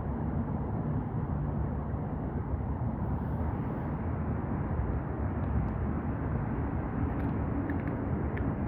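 Steady low outdoor rumble, with a few faint clicks near the end.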